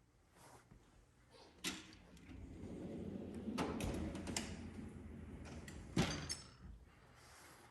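Snap-on tool chest drawer sliding on its runners and shut with a sharp metal clunk about six seconds in, followed by a brief rattle. Before that come a click and a few seconds of sliding rumble.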